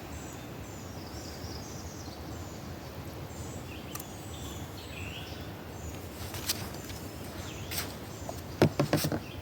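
Small birds chirping over a steady outdoor background, with short high calls repeating throughout. Several sharp clicks and knocks come in the last few seconds, the loudest near the end.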